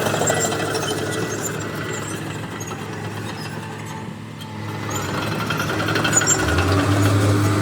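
Heavy diesel engine of earthmoving machinery running; it eases off about four seconds in, then builds again, with a deeper, stronger note coming in near the end as it takes load.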